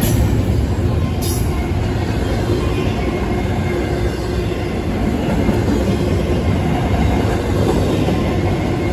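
Freight train's double-stack container well cars rolling past at close range: a steady rumble of steel wheels on rail, with one brief sharp click a little over a second in.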